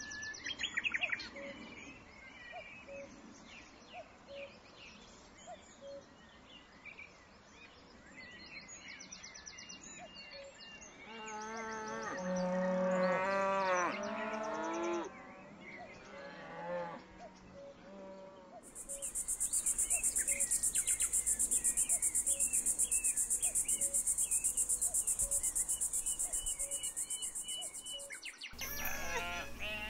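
Cow mooing: one long, drawn-out moo about halfway through, over faint chirping. Later a loud, steady high-pitched hiss with fast, even pulsing runs for about ten seconds and cuts off suddenly.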